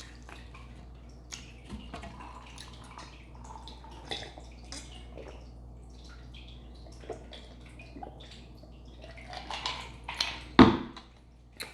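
Close-miked chewing of a dressed salad: wet mouth smacks and irregular small crunches and clicks. About ten and a half seconds in comes one short, loud burp.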